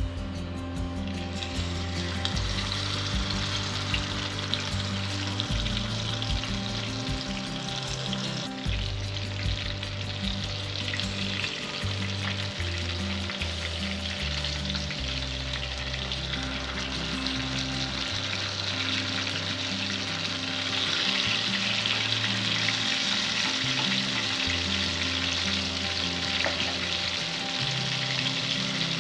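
Marinated quail deep-frying in hot oil, a steady sizzle that grows louder about two-thirds of the way through.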